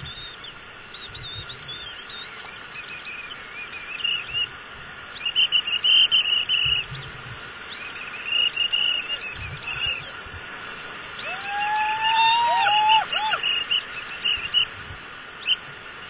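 Rushing white water of the river rapids around the raft, with occasional low thumps. Repeated high chirping calls cut in over the water, and a couple of rising-and-falling whistles about twelve seconds in.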